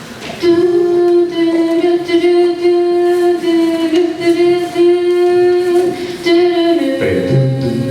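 A cappella singing: a long, steadily held sung note, joined about seven seconds in by lower voices as the harmony comes in.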